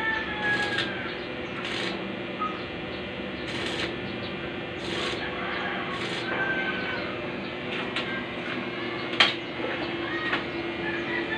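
Irregular sharp metallic taps and clicks from work fitting a barrel bolt to a metal gate, spread unevenly over a steady low hum.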